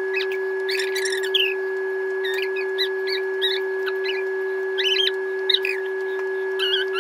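Edited-in sound effect: a steady held tone with many short, high, squeaky bird-like chirps scattered over it.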